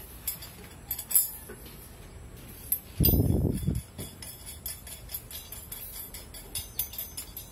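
Steel bolt and small metal parts clinking and tapping against each other as they are fitted to a homemade rear-shock spring compressor, with a louder dull knock about three seconds in.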